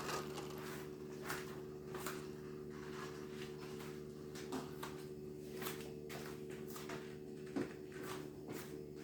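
Refrigerator running with a steady low hum, with scattered light clicks and knocks over it.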